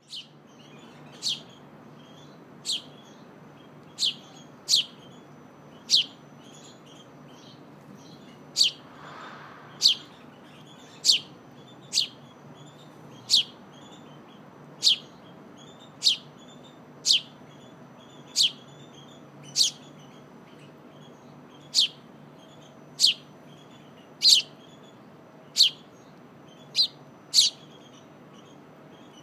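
Young house sparrow giving a steady series of sharp, high chirps, roughly one a second, each note falling in pitch: the begging calls of a fledgling asking its parent to feed it.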